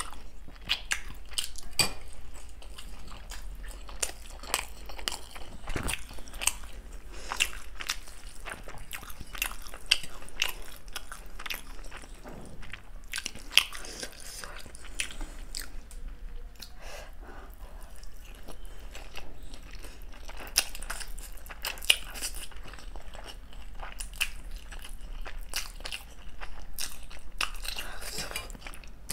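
Close-miked eating sounds: a person chewing and biting momos and Maggi noodles, a dense run of short, sharp mouth clicks and smacks with some crunching.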